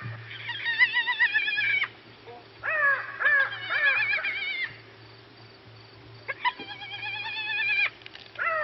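Spotted hyena cub whining: three long, high-pitched calls, each opening with a short falling glide and then held with a wavering pitch.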